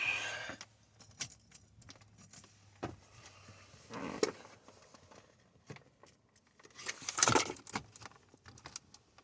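Plastic interior trim around a car's shifter and dash being handled and pried loose: scattered clicks, knocks and rattles, the loudest about seven seconds in. Under them a faint low hum stops about four seconds in.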